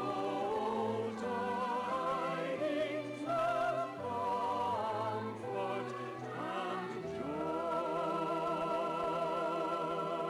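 Singers performing a song with vibrato, settling into a long held note about seven seconds in.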